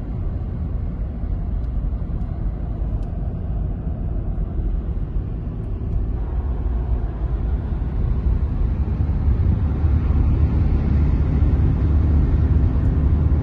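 Car driving, heard from inside the cabin: a steady low rumble of tyres, engine and wind that grows louder about halfway through.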